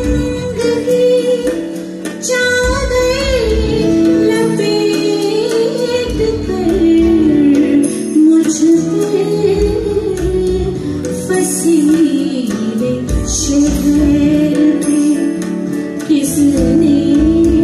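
A woman singing a ghazal with live band accompaniment: a wavering, ornamented vocal melody over instruments and a steady low beat.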